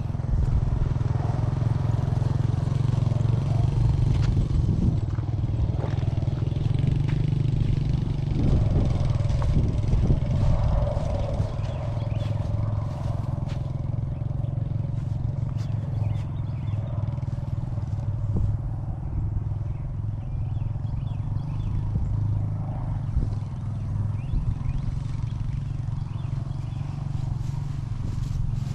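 1986 Honda 4Trax ATV's single-cylinder four-stroke engine running as it is ridden, on a test ride to check the newly shortened and lubed drive chain. It is a little louder for the first dozen seconds, then slightly lower.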